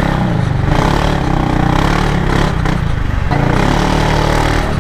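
Kymco Xciting S 400i maxi scooter's single-cylinder engine running through an aftermarket Orion carbon-tip exhaust while riding, its note shifting a little with the throttle a couple of times.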